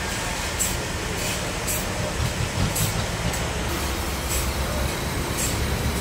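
Forklift engine running steadily under load, a low rumble, with a short high hiss repeating about once a second.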